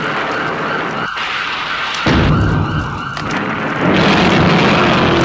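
Dense, loud destruction sound effects: a rumbling, explosion-like din with a steady siren-like tone over it. It steps up in loudness about two seconds in and again near four seconds.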